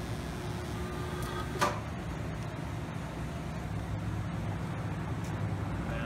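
Arc welder working on a BMX frame: a steady hiss with a low hum underneath, and one sharp click about a second and a half in.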